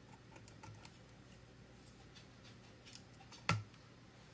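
Faint clicks and handling noise of multimeter test leads and alligator clips being fitted to a battery's in-line test tabs, with one sharper click about three and a half seconds in.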